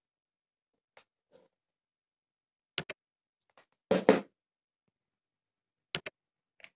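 Mouse-click sound effects coming as quick double clicks, three times about three seconds apart, with a brief louder burst of noise about four seconds in.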